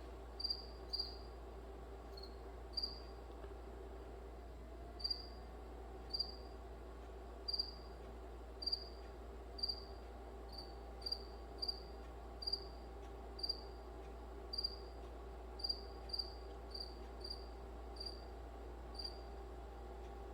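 A cricket chirping, short high chirps about once a second, some coming in quick pairs, over a steady low hum.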